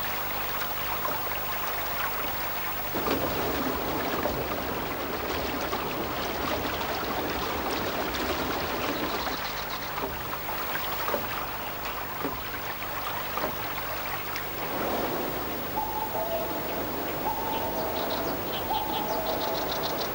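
Stream water running and splashing steadily, a little louder from about three seconds in. Near the end a bird calls repeatedly in two notes, high then low, with a few short high chirps.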